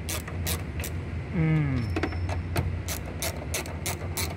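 Socket wrench on a long extension tightening the side mirror's mounting nut inside a car door, giving a series of sharp metallic clicks that come faster, about three a second, in the second half. A steady low hum runs underneath, and a short falling tone sounds about a second and a half in.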